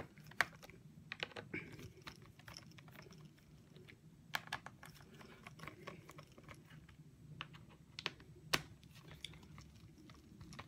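Small screwdriver turning the captive screws in a Lenovo ThinkPad T450's plastic bottom cover, giving faint, scattered clicks and taps as the tip seats and turns in each screw, with a few sharper clicks spread through.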